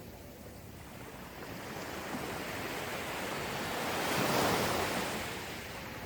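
Gentle ocean waves washing onto a sandy beach. The wash swells to a peak a little past the middle, then ebbs away.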